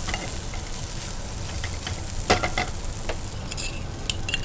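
Vegetable cutlet filling of grated potato, paneer, beans and carrot sizzling steadily as it fries in a nonstick pan, stirred with a spatula. A few sharp clicks come about two seconds in and near the end.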